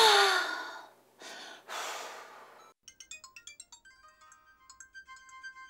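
A loud breathy huff, then a second one, like an exasperated exhale. About three seconds in, a mobile phone ringtone starts: a quick melody of short plucked notes that keeps on repeating.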